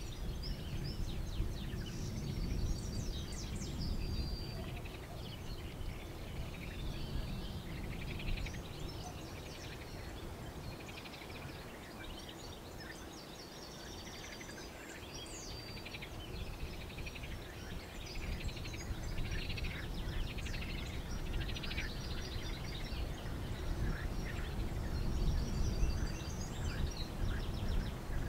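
Small songbirds singing and chirping, many short trills and high notes overlapping, over a low rumble that swells and fades.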